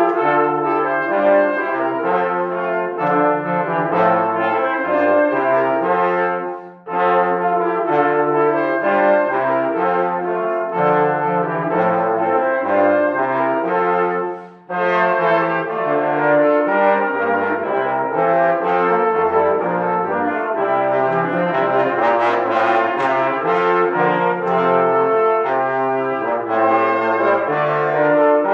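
Brass ensemble playing sustained chords in several parts, phrase by phrase, with short breaks between phrases about seven and fifteen seconds in.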